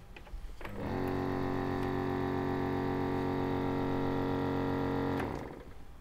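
Small vacuum pump of a foot-impression stand running steadily for about four seconds, drawing the air out of the silicone cushions so they set around the foot's arch and heel. It starts about a second in and cuts off near the end.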